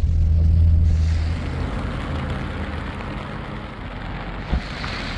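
Car interior noise while driving in rain: a steady engine and road rumble, strongest in the first second or so, under an even hiss of rain and wet tyres. A single short click about four and a half seconds in.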